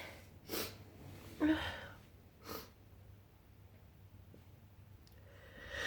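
A person's short breaths between sneezes during a sneezing fit: three brief breaths in the first few seconds, a quiet pause, then an in-breath building near the end as the next sneeze comes on.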